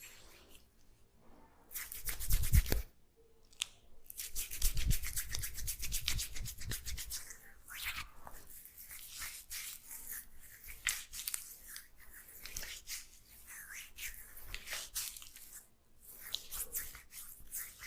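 Hands rubbing and scrubbing hair and scalp in quick, close-up strokes during a head massage, louder for a few seconds near the start.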